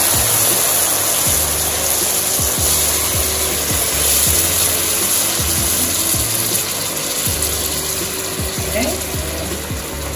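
Background music with a moving bass line and a regular beat, over a steady hiss.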